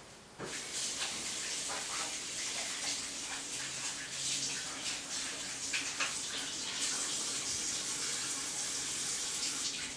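Water running from a tap while hands are washed under it, an even splashing hiss that starts about half a second in.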